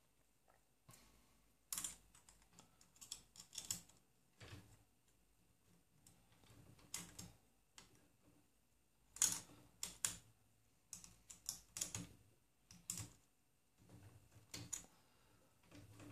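Faint, irregular clicks and light taps of a small open-end wrench and hex key on the nuts and bolts of a 3D printer's X carriage bearing holders as they are tightened.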